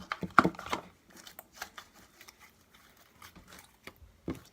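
Hands working homemade slime: a quick run of sticky clicks and squelches in the first second, then scattered softer clicks, with one sharper click near the end.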